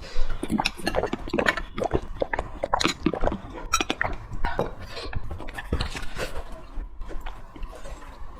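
Close-miked mouth sounds of a person chewing and biting into braised pork trotters: a rapid, irregular run of wet clicks and smacks.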